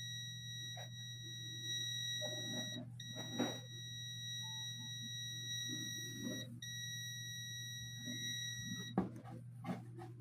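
Digital multimeter's continuity buzzer giving a steady high-pitched beep while its probes bridge the commutator bars of a vacuum-cleaner motor armature, signalling a low-resistance connection (about 0.11 ohm) between the bars. The beep breaks off briefly about 3 and 6.5 seconds in and stops about 9 seconds in. A low steady hum runs underneath.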